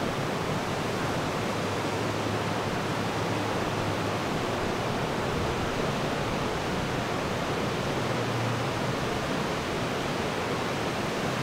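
Steady, even rushing noise with no change in level, with a faint low hum coming and going.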